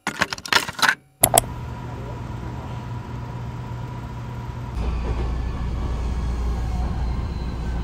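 Railway ambience: after a brief rustle and click, a steady hum with a faint high tone on an underground station platform. A little under five seconds in it cuts to the steady low rumble inside a Hankyu Kyoto Line train car.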